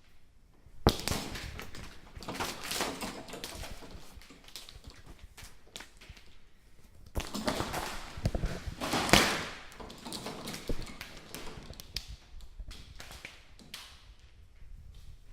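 Plastic strip curtain door being pushed through: the strips rustle and slap against one another with many sharp clacks. The sound comes in two busy spells, about a second in and again from about seven to ten seconds, with scattered clacks between.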